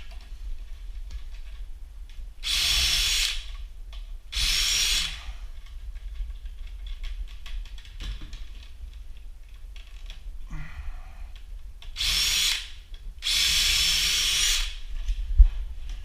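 Cordless drill with a 1/8-inch bit drilling pilot holes through a wooden cabinet door. It runs in four short bursts: two close together in the first third and two more about a second apart near the end. A sharp click follows near the end.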